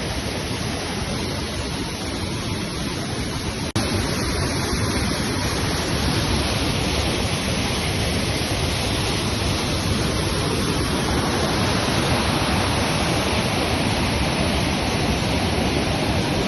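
Waterfall rushing in a steady, dense roar of falling water. An abrupt cut about four seconds in switches to a slightly louder take of the same rush.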